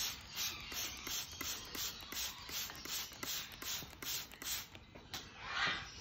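Hand-pump spray bottle squirting water over and over, a quick run of short hisses at about four to five squirts a second.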